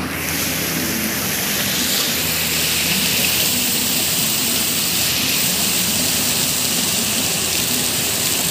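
Water from a plaza floor fountain's jets splashing onto wet paving: a steady rushing hiss.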